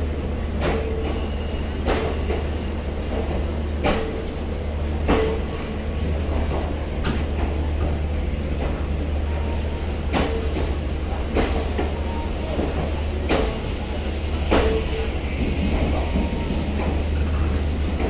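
Passenger coaches rolling slowly out on the rails, their wheels knocking over rail joints in pairs every few seconds over a steady low hum.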